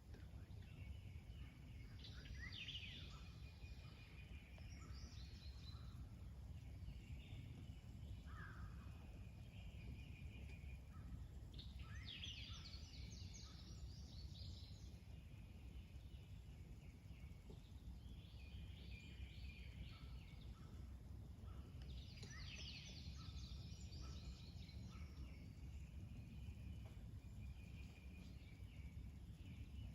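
Faint birdsong from small birds, a short high phrase repeating about every ten seconds, over a low steady background rumble.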